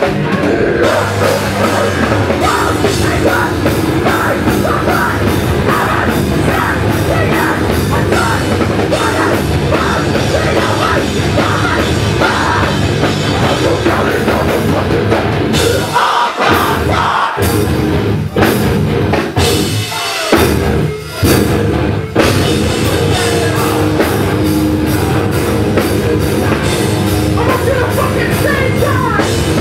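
Hardcore band playing live: heavy distorted guitars and a drum kit, loud and dense, with a few abrupt stop-start breaks a little past halfway through.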